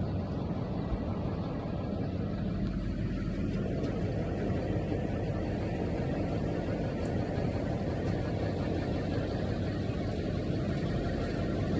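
Steady engine and road noise heard inside the cabin of a moving truck.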